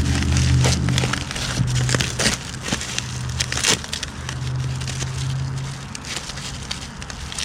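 Scattered clicks and knocks of motorcycle floorboard parts being handled, over a steady low hum that fades in and out.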